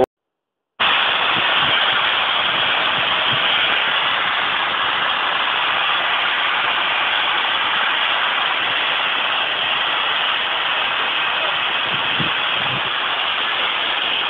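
A steady, loud hiss of steam from a standing steam tank locomotive, beginning after a moment of silence at the start.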